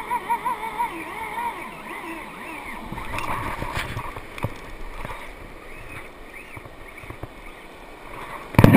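Overhead fishing reel's drag singing as a shark runs line off the spool, its whine wavering in pitch with the fish's speed, over the wash of surf. A burst of loud knocks near the end.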